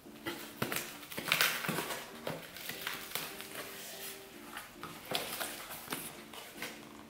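Knife blade slitting packing tape and plastic wrap on a cardboard box, in a run of short, irregular scrapes, clicks and crinkles as the cardboard flaps are pulled open.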